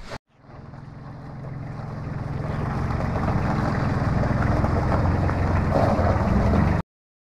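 Small compact tractor's engine running as it drives up, growing louder as it comes closer, then cutting off suddenly near the end.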